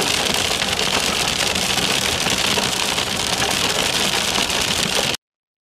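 Hail pelting a car's windshield and body, heard from inside the car as it drives: a loud, dense, steady clatter of many small impacts that cuts off suddenly near the end.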